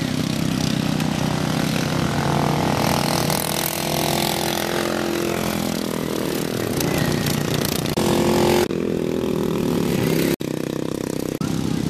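Racing riding lawn mower engines running hard at speed, one passing close. The sound breaks off abruptly a couple of times near the end.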